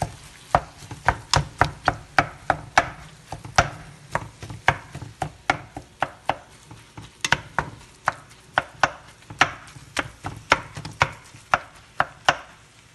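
A cooking utensil knocking sharply and repeatedly against the bottom of a pot, about two to three knocks a second, as ground chicken is broken up and stirred over the heat.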